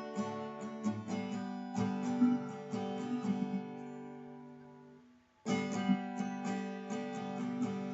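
Background music on acoustic guitar, plucked and strummed. About five seconds in the music fades away, then starts again about half a second later.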